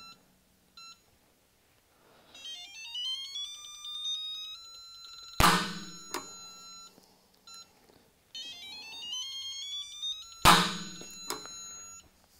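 Stahlwille mechanical torque wrench pulled on a torque tester at about 150 ft-lb, twice: each time a rising tone builds over a couple of seconds as the load comes on, then the wrench gives a sharp click as it breaks over at its set torque, followed by a brief metallic ringing.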